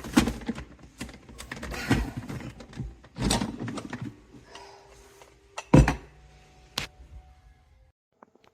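A series of irregular knocks and clunks of hard objects being handled in a small room, with a faint steady hum midway; the sound cuts off abruptly near the end.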